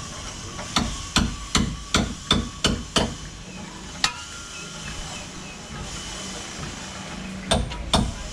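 A hammer striking: a run of about six blows at a steady beat of roughly two and a half a second, a single blow about four seconds in, then another quick run of blows near the end.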